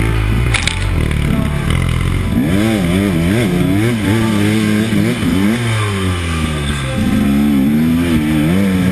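KTM 250 XC two-stroke dirt bike engine. The engine note rises and falls again and again as the throttle is blipped on and off at low speed.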